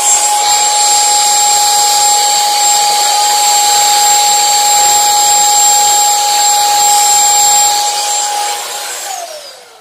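Commercial vacuum cleaner running steadily with a high motor whine, then switched off near the end, the whine falling in pitch as the motor spins down.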